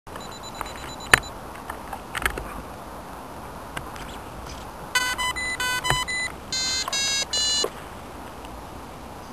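A few sharp clicks and knocks, then a run of electronic beeps in short groups at changing pitches from about five seconds in, from a T-Rex 450 RC helicopter's electronics as it is readied on the ground, typical of a speed controller's start-up arming tones.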